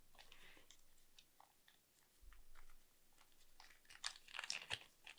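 Pen packaging being opened and handled: faint crinkles and small clicks, growing into a busier run of crinkling about four seconds in.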